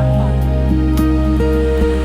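Slow instrumental background music: held melody notes changing every half second or so over a steady low drone.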